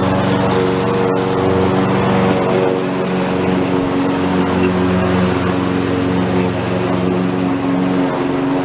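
Lawn mower engine running steadily while cutting grass, its pitch shifting slightly at times.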